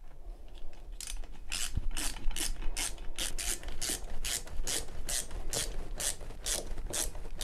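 OX ratchet screwdriver ratcheting as a screw is driven through a metal shelf bracket into a wall plug: a run of short rasping clicks about three a second, starting about a second in.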